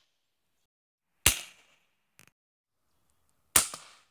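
Pellet gun firing twice, about two seconds apart, each a sharp crack that fades quickly.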